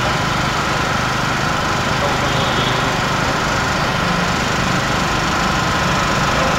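An engine running steadily: a low drone with a constant whine over it, unchanging in pitch and level.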